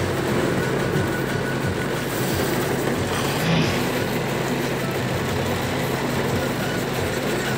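Heavy rain falling steadily on a car's roof and windscreen, heard from inside the cabin, over a steady low hum from the car.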